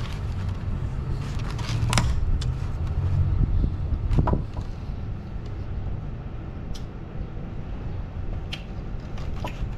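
Low road-traffic rumble from a passing vehicle, swelling between about one and four seconds in and then easing, with a few light clicks over it.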